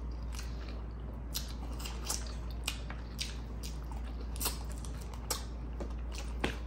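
Close-miked eating: a person chewing a mouthful of chicken, with short wet mouth clicks and smacks at irregular intervals, about one or two a second.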